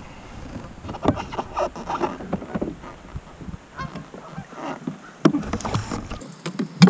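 Geese honking repeatedly, with a sharp knock near the end.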